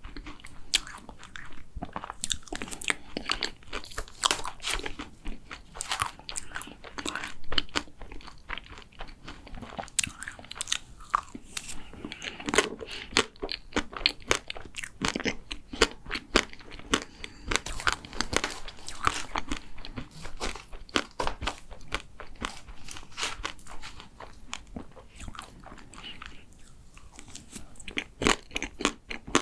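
Close-miked chewing and biting of a chocolate macaron: a dense run of small crunches and wet mouth clicks, easing briefly a few seconds before the end.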